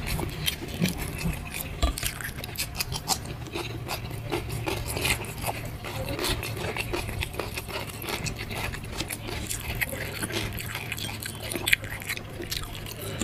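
Eating by hand from a steel plate: irregular small clicks and scrapes of fingers picking up thin fried noodles, mixed with chewing, over a steady low hum.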